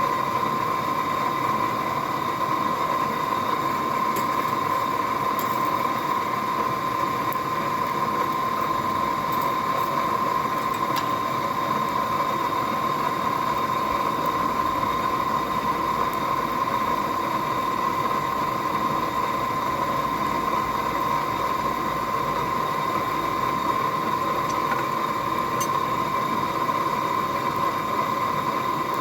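Forge air blower running steadily: an even rushing hum with a constant whine, and a few faint metal clicks.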